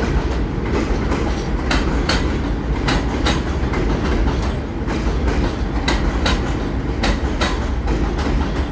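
R46 subway train running past the station without stopping, its wheels clacking unevenly over the rail joints above a steady low rumble.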